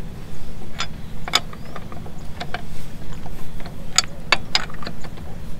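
Wheel spanner clinking on a car's lug nuts as they are fitted and turned tight: scattered sharp metallic clicks, with a quick cluster about four seconds in, over a steady low hum.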